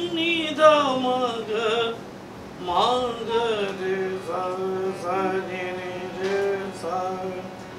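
A man singing a slow Indian classical devotional melody (a Jain stavan in raag Puriya, a night raag of Marwa thaat), with a steady harmonium drone underneath. Gliding, ornamented phrases break off about two seconds in, then resume with long held notes.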